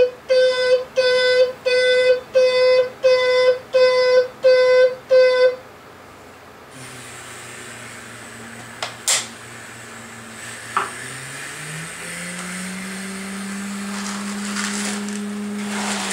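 Toy loader's electronic backup beeper sounding about ten even, steady-pitched beeps, roughly two a second, stopping after about five and a half seconds. A low steady hum follows, stepping up in pitch around the twelfth second, with a couple of sharp clicks.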